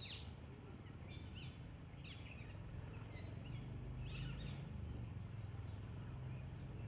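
A bird giving short, high chirps that fall in pitch, a few single and some in quick pairs, over a low steady hum.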